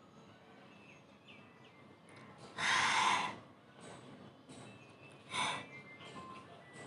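A girl's forceful nasal bursts: a long loud one about two and a half seconds in and a shorter one a little past five seconds. They are her reaction to sneezing powder stinging her nose.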